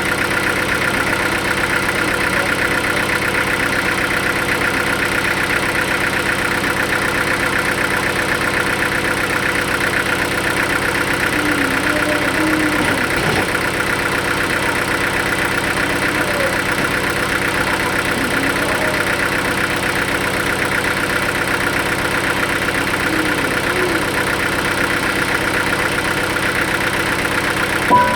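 A sawmill engine running steadily at an even speed, with no change in pitch or load.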